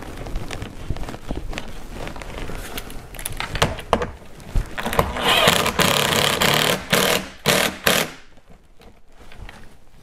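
Compact cordless driver driving a Torx T30 screw into the door carrier: a few clicks of handling, then about five seconds in the motor runs for roughly two seconds, gives a few short trigger pulses, and stops around eight seconds in.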